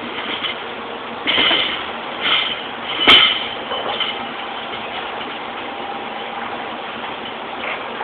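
Steady factory-floor machinery noise with a few clanks of metal parts being handled, the sharpest about three seconds in.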